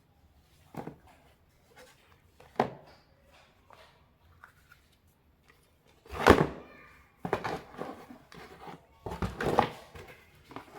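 Handling noises from unboxing sandals: a few light knocks, then several louder clattering thumps and rustles from about six seconds in.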